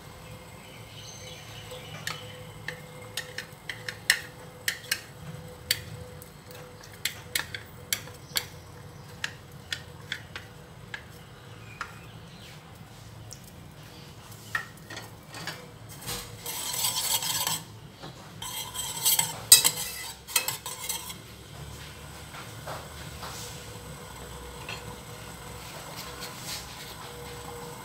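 A metal spoon clinking against a stainless steel saucepan as the sauce in it is stirred, about a dozen sharp clinks spread over the first half, followed by two louder noisy stretches of about two seconds each around the middle.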